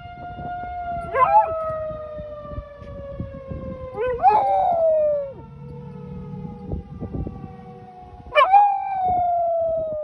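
A tornado warning siren sounds a steady tone that slowly falls in pitch, while a dog howls at it three times, each howl a quick rising yelp that slides into a long falling note; the howls are the loudest sounds.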